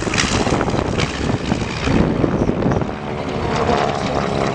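Radial-engine propeller aircraft running as they fly past, with wind on the microphone.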